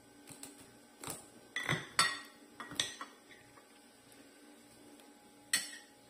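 A table knife cutting a brownie in a glass baking dish, the blade clinking and scraping against the glass in a string of short sharp knocks, the loudest about two seconds in, with a last clink near the end.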